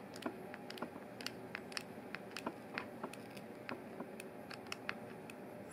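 A small screwdriver turning a screw into the plastic earcup housing of Bose QC25 headphones: a run of faint, irregular light clicks, about three a second.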